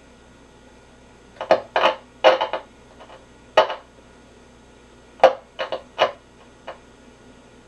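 Grunow 1191 tube radio's speaker giving short bursts of loud static as the tuning dial is turned, about ten in two clusters, over a faint steady hum. Each burst marks a station being crossed without the programme coming through. This is taken as a sign that the oscillator and mixer are probably working while the fault could lie in an IF stage or the detector.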